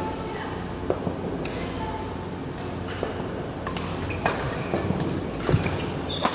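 Badminton rackets hitting a shuttlecock in a doubles rally: several sharp ticks about a second apart. Short squeaks from shoes on the court floor come between the hits.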